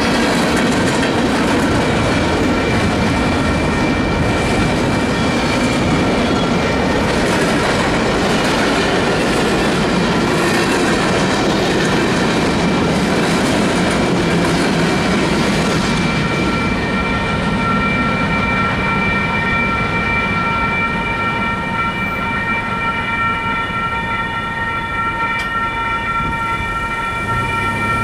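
Freight cars rolling through a railroad grade crossing with wheel clatter, over the steady ringing of the crossing's electronic bell. The train noise fades out about halfway through, leaving the bell ringing on its own.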